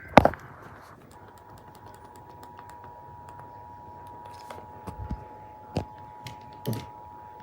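Emergency Alert System two-tone attention signal, two steady tones together near 900 Hz, sounding from about a second in just after a burst of data-header tones. Scattered sharp clicks like keyboard typing sound over it, the loudest just after the start.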